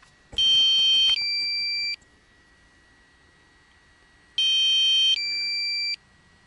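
A quadcopter's low-battery warning: a two-tone electronic beep pattern, about a second and a half long, sounded twice about four seconds apart. The drone's battery is exhausted and it has to be landed.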